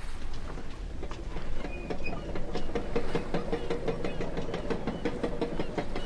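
Rhythmic mechanical clatter of many quick clicks, joined about two seconds in by a steady tone.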